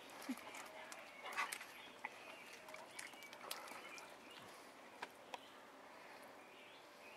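Quiet outdoor ambience with faint bird chirps and a few scattered small clicks and taps.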